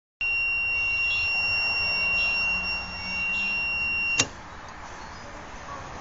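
Loud, high-pitched steady buzzing tone from an unidentified device, cutting off with a click about four seconds in.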